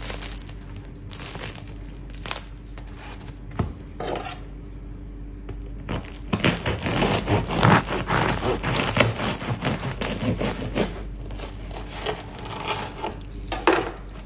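Knife cutting down through the hard, crisp crust of a freshly baked sourdough loaf: a dense run of crunching and crackling in the middle, with scattered crackles and clicks of the crust being handled before and after.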